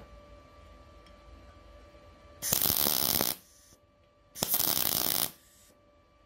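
MIG welding arc laying two tack welds: two crackling bursts of about a second each, the first about two and a half seconds in and the second about two seconds later, each trailing off in a brief fainter hiss.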